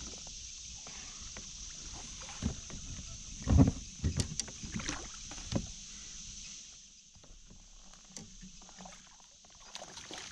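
A few hollow knocks and bumps on a fishing kayak's hull as rod and gear are handled, the loudest about three and a half seconds in, over a steady high hiss.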